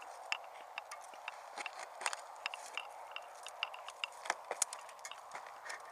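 Dry twigs and brush crackling and snapping as they are handled and piled over a hidden ammo box, in many small irregular clicks over a faint steady hiss.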